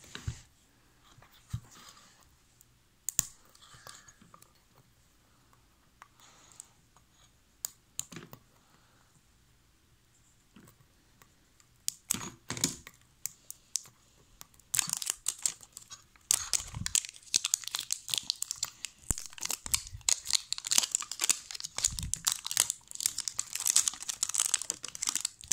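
Plastic wrapping being picked at, torn and crumpled off a tin by hand: scattered small crackles at first, then continuous dense crinkling and tearing from about halfway through.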